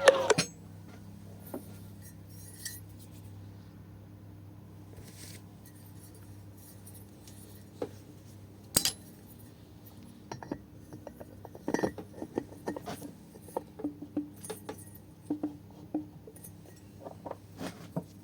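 Metal engine parts and hand tools clinking and tapping during small-engine assembly: scattered sharp clicks, the loudest near the start, about nine seconds in and about twelve seconds in, over a faint steady hum.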